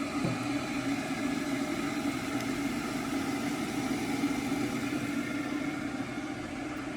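Onions frying in hot oil for biryani: a steady sizzle over a constant low hum.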